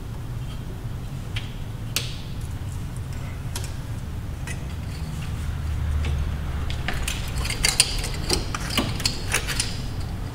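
Metal hand tools and parts clinking and tapping against engine components as they are worked loose: scattered clicks at first, then a busier run of clinks in the last few seconds, over a steady low hum.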